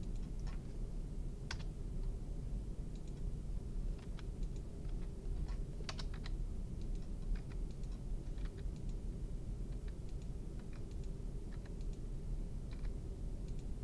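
Computer keyboard being typed on: short keystroke clicks in irregular runs and single taps, over a steady low background hum.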